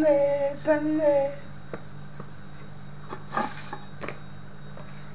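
A woman's voice singing a few held notes, then a few light knocks and taps as carrots and a kitchen knife are set down on a bamboo cutting board, over a steady low hum.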